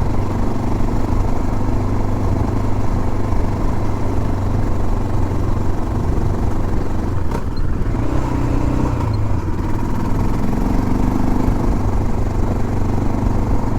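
Motorcycle engine running steadily while riding up a dirt trail, with a single sharp knock about seven seconds in.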